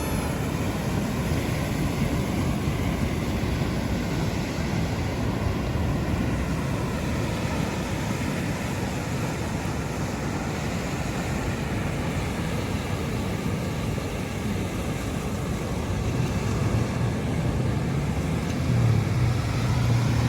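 Steady vehicle noise: a car's engine and road rumble running continuously, with a low hum growing louder near the end.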